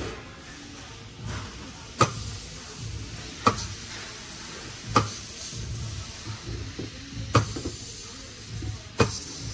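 Five sharp knocks, spaced about one and a half to two and a half seconds apart, over a low steady rumble.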